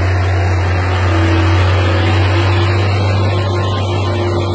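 Water tanker truck driving and spraying water: a steady low engine drone under a loud, even hiss of water spray.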